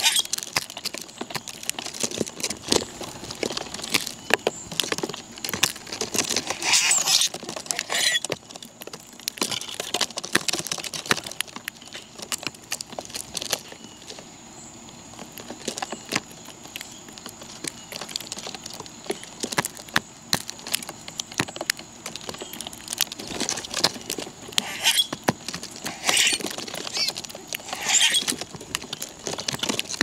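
Birds feeding on scattered seed: a dense patter of pecking taps, with a few short, high chirps now and then.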